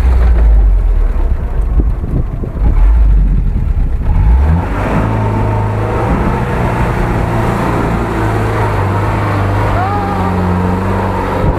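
UAZ-469 engine revving under load as the vehicle claws up a steep dirt bank. About four and a half seconds in, the heavy low rumble gives way to a steadier engine note as it drives past close by.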